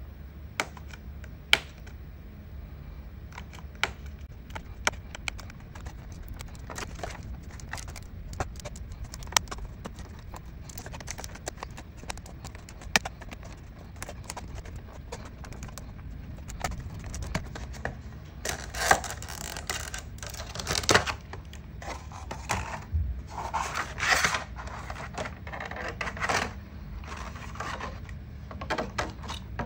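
A clear plastic blister pack being handled and opened: scattered sharp clicks and taps of the stiff plastic, then from about 18 seconds in a longer stretch of louder crinkling and crackling as the plastic shell is pulled apart.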